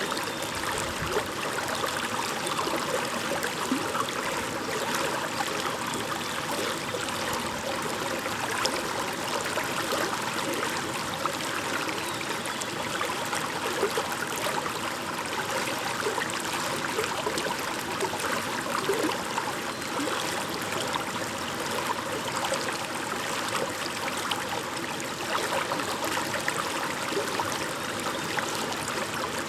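Shallow stream babbling over stones, a steady rush of water with small gurgles and splashes flickering through it.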